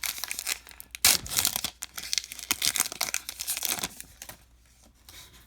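Baseball card pack wrapper being torn open and crinkled by hand: a dense run of rips and crackles that stops about four seconds in.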